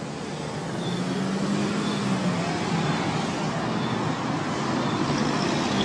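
Road traffic: cars driving through an intersection, engine and tyre noise growing louder, with one engine note rising and then dropping in pitch as a car passes.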